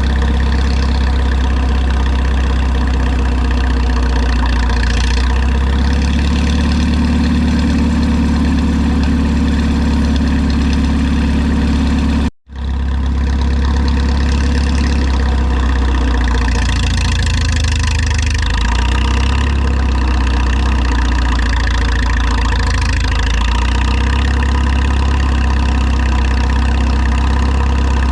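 Minneapolis-Moline U tractor's engine idling steadily, with a sudden brief break in the sound about twelve seconds in.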